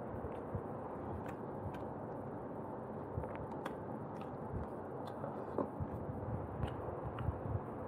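Close-miked chewing of roast chicken and rice, with scattered short wet clicks and smacks of the mouth.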